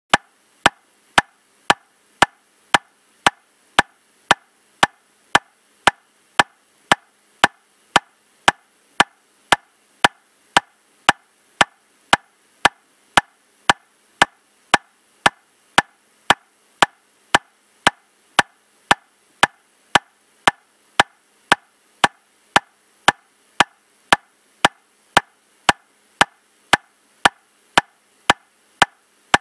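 Metronome clicking steadily at 115 beats per minute, just under two sharp, even, wood-block-like clicks a second.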